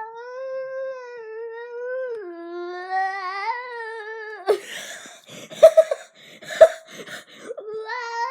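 Pet bird squawking: a run of loud, harsh, shrill squawks in the middle, the loudest two about a second apart. Before and after them a drawn-out, wavering hum rises and falls in pitch.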